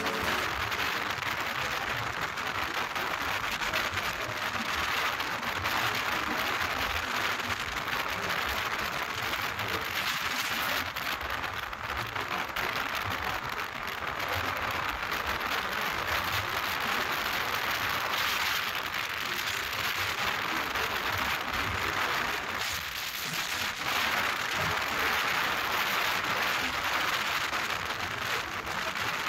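Wind rushing over the microphone of a motorcycle riding at highway speed, about 110 km/h: a steady hiss that dips briefly about 23 seconds in.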